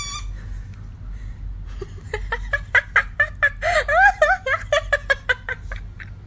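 Rustling and clicking from a toy-poodle puppy digging and chewing in its pet bed. About two seconds in, a quick run of short squeaks starts and goes on for about three and a half seconds, and then it dies down.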